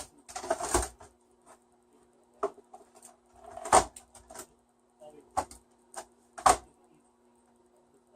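Containers being handled on a kitchen counter: several sharp knocks and clatters at irregular intervals as they are picked up and set down, the loudest about halfway through and again near two thirds in. A faint steady hum runs underneath.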